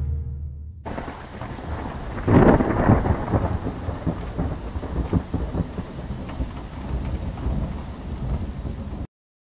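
Rain falling steadily, with a roll of thunder swelling about two seconds in. The sound cuts off suddenly near the end.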